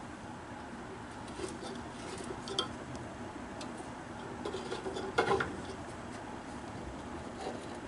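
Light metallic clicks and clinks from hands working on a band saw's blade and blade guide, with one louder clatter about five seconds in.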